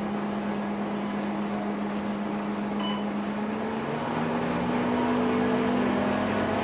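A diesel city bus's engine droning steadily, heard from inside the passenger cabin. About four seconds in it rises in pitch and gets a little louder as the bus picks up speed.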